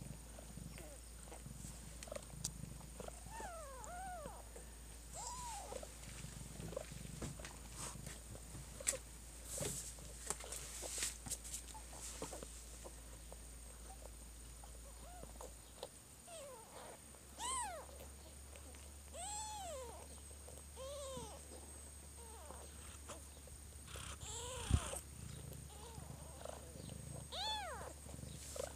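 Mother cat purring while she licks her newborn kittens, with short, thin mews from the kittens, about a dozen scattered through, each rising and then falling in pitch. Wet licking and fur-rustling clicks come in a cluster in the first half, with one sharp click near the end.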